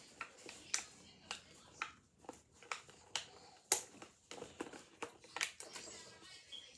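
Unboxed toys and packaging being handled: a run of irregular sharp clicks and taps, about two a second, with light rustling between them.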